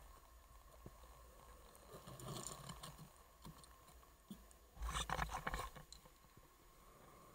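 Scuba diver's regulator exhaust bubbles from exhaling underwater, in two bursts: a softer one about two seconds in and a louder one about five seconds in.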